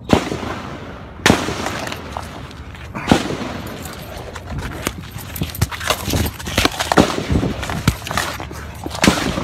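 Rifle gunfire: a long series of sharp shots at uneven intervals, from one or two a second to several close together, each ringing out briefly.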